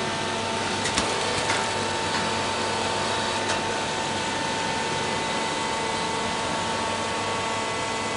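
Leopard hay baler running steadily, a dense mechanical hum with a steady whine, and a few short knocks in the first few seconds.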